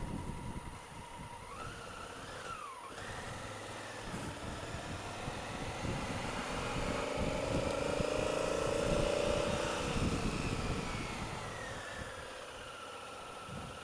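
Honda Africa Twin CRF1000L's parallel-twin engine running at low road speed. Its pitch rises and falls briefly about two seconds in, climbs steadily through the middle, then drops back near the end.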